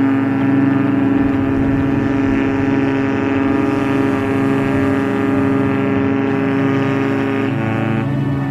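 Cruise ship's horn sounding one long, steady blast, a deep tone with many overtones that shifts slightly near the end, signalling the ship's departure.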